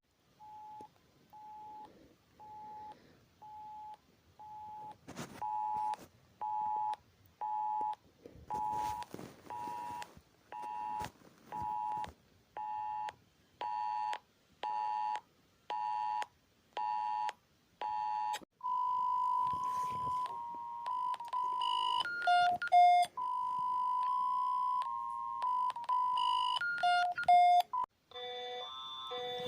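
Synthesized emergency-alert tone: short two-note beeps about once a second, growing louder over the first eighteen seconds or so. They give way to a held tone that steps between a few pitches, with brief breaks.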